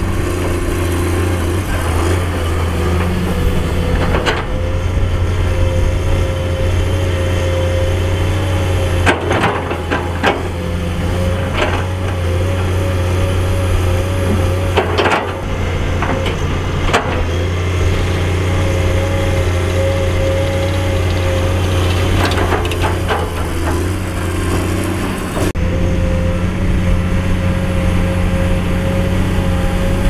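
Komatsu PC210 hydraulic excavator's diesel engine running steadily under working load, with scattered knocks and clunks of the bucket working rock and soil.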